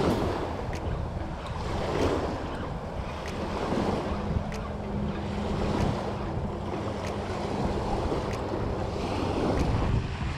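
Small waves washing in and breaking at the water's edge, swelling and falling every couple of seconds, with wind buffeting the microphone. Faint regular ticks, about one a second, sit beneath the surf.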